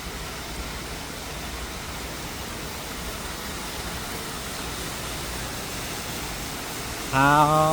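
Steady rushing of water from an indoor waterfall. Near the end comes a short rising vocal sound from a person.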